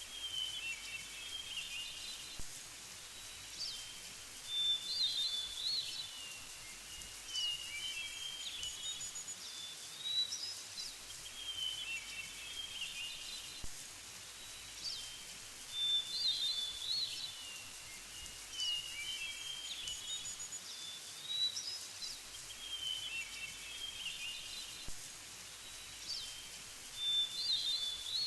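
Birds chirping and trilling over a steady background hiss, with the same run of calls coming back about every five and a half seconds.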